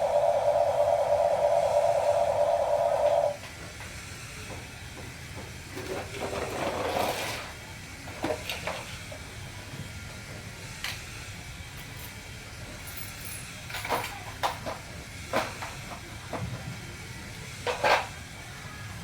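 A small electric motor of a remote-control toy machine whining steadily, stopping abruptly about three seconds in. Then a steady hiss with scattered clicks, scrapes and light knocks.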